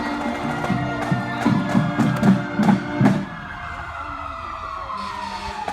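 Music with drum beats that stops about three seconds in, over an emergency-vehicle siren wailing with its pitch slowly falling.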